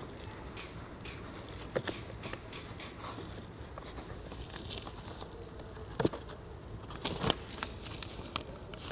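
Faint handling sounds of a plastic, metal-look aftermarket pedal cover being pressed and adjusted on a car's accelerator pedal: light rustling and scattered clicks, with two sharper clicks about six and seven seconds in.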